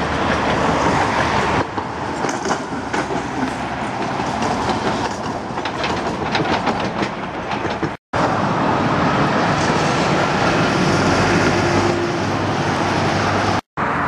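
Trams running on street track amid road traffic, their wheels clacking over rail joints in a quick run of clicks partway through.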